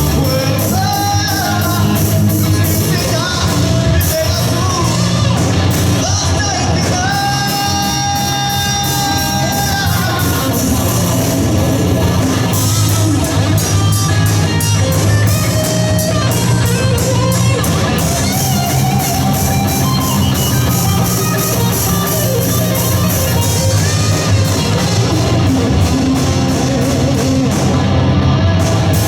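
Live rock band playing a cover: electric guitar, bass guitar and drum kit, with a lead singer. A long held note rings out about a third of the way through.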